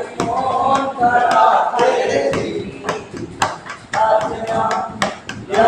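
Men's voices, with sharp knocks or taps now and then.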